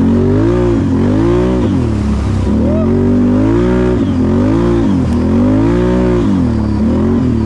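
Four-wheeler (ATV) engine under way, revving up and easing off again and again, its pitch rising and falling about once a second.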